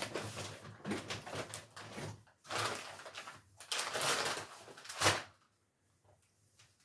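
Rustling and light knocks of shopping items and their packaging being handled, in several short spells, dying away after about five seconds.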